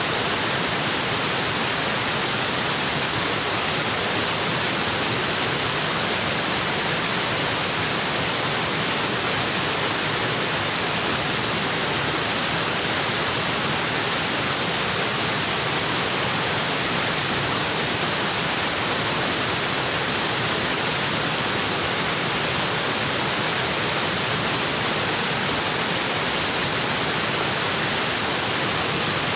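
Waterfall pouring onto rocks: a steady, unbroken rush of water.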